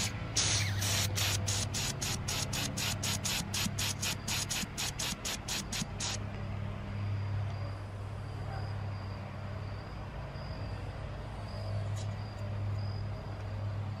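Air hissing through the cleaned gas orifice and tube of a water heater burner, in rapid pulses about four a second, showing the rust-clogged passage is now clear. It cuts off about six seconds in, leaving a low steady hum.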